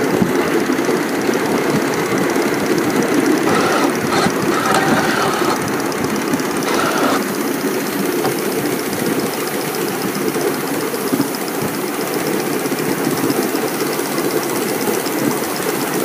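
Ride-on miniature live-steam locomotive running under way, heard from right behind it: a steady, rapid exhaust chuff with its wheels running on the track.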